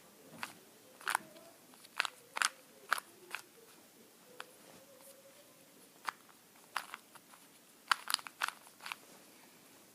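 Plastic clicks of a 2x2 Rubik's Cube's layers being twisted, coming in irregular runs: a quick series in the first few seconds, a pause, then a tighter cluster near the end.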